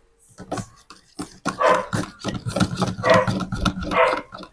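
A dog barking repeatedly, about two barks a second, starting about a second and a half in.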